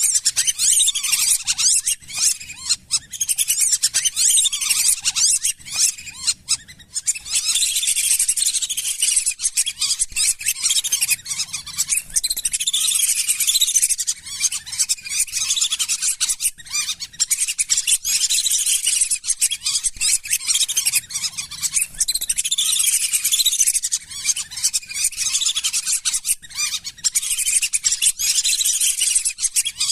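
A flock of lesser whistling ducks calling, with many rapid, high, thin whistles overlapping in a dense, continuous chorus.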